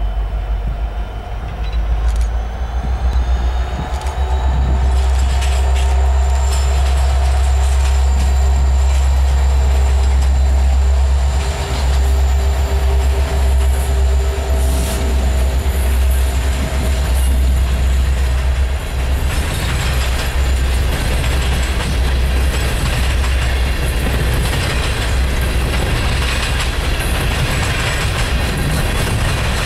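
Two EMD SD70MAC diesel-electric locomotives with 16-cylinder two-stroke engines pass at the head of a coal train: a deep engine rumble with a steady whine over it, building over the first few seconds. Past the middle the whine fades and the clatter and rattle of the coal hopper cars' wheels on the rails takes over.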